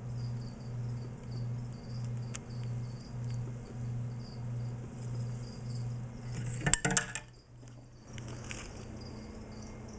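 A low hum pulsing evenly, about one and a half times a second, that stops about seven and a half seconds in and leaves a steadier, quieter hum. Around seven seconds in, a short burst of loud knocks and rattles from the camera being handled.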